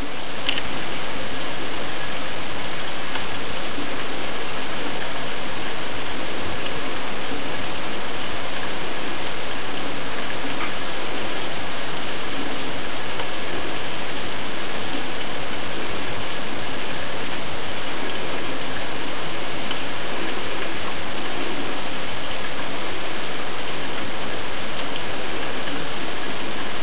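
Wood coals burning in a stove: a steady, dense crackling hiss with a few faint pops.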